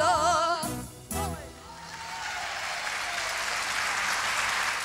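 A woman's voice briefly at the start, then from about two seconds in an audience applauding, the clapping growing steadily louder.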